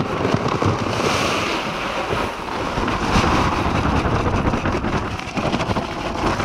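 Granular nitrogen fertilizer pouring from a sack into the red plastic hopper of a 500-litre fertilizer spreader: a steady rushing hiss of granules running into the hopper.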